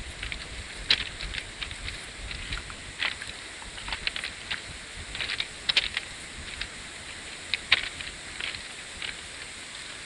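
Footsteps crunching on loose railway ballast stones, irregular crunches over a steady hiss.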